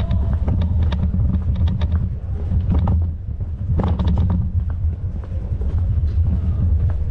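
Ride noise from a bicycle-mounted camera: a steady low rumble with many scattered light clicks and rattles.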